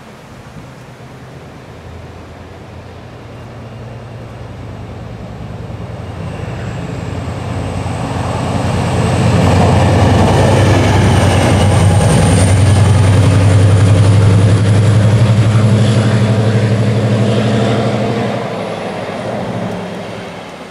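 Diesel-electric locomotive approaching and running past at speed. The engine's drone grows over the first several seconds, stays loud for about eight seconds with a thin high whine above it, then falls away near the end.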